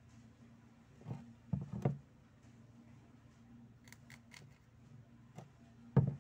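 Handling noise from artificial rose stems and a foam-filled vase: a few soft knocks in the first two seconds, a quick run of light clicks about four seconds in, and a louder thump near the end.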